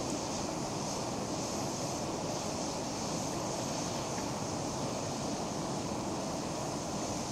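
Small canister-fed backpacking gas stove burning under a pot of water coming to the boil, with a steady rushing hiss.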